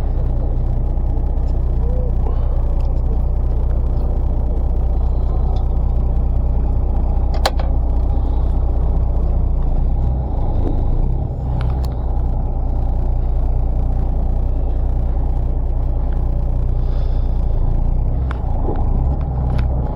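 Fishing boat's engine running steadily, a loud low rumble, with a couple of sharp clicks.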